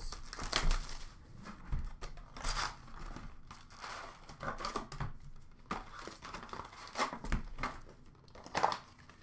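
Hockey card retail boxes being torn open, with the packs crinkling as they are handled: irregular rustling, tearing and crackling.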